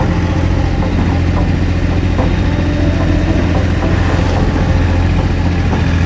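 Excavator's diesel engine running steadily with a deep hum, with faint light clanks now and then.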